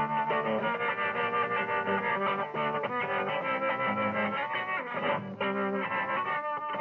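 Music with plucked guitar, playing steadily with a quick, even pulse and a brief drop about five seconds in.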